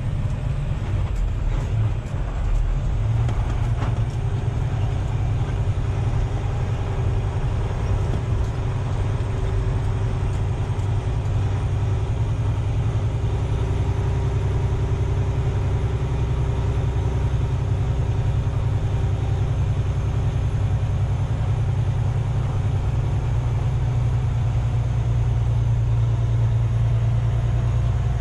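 Heavy rotator tow truck's diesel engine running steadily as it drives slowly over a rough dirt track, heard inside the cab as a deep drone that grows slightly louder near the end.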